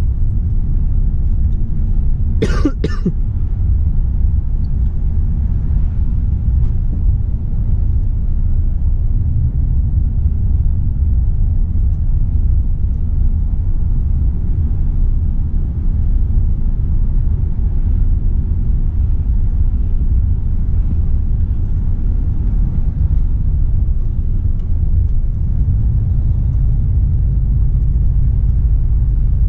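Cab interior of a Volvo FH 460 truck on the move: the straight-six diesel and road noise make a steady low rumble. About two and a half seconds in, the driver gives one short cough.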